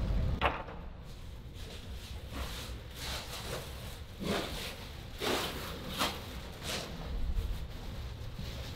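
Footsteps and the crinkling of an armful of clear plastic wrapping as a person carries it down a tiled hallway, heard as a few short, irregular rustles.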